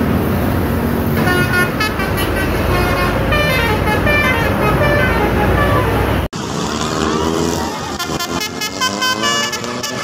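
Buses sounding telolet basuri musical horns: short tunes of stepping notes over engine and traffic noise. It cuts off abruptly about six seconds in and a second bus's horn tune follows.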